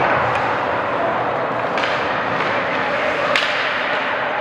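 Indoor ice rink ambience during a youth hockey game: a steady wash of spectator chatter and skates on the ice, with one sharp clack a little over three seconds in.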